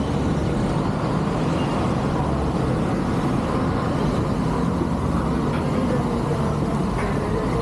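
Steady road traffic on a busy city street, engines and tyres of passing vehicles.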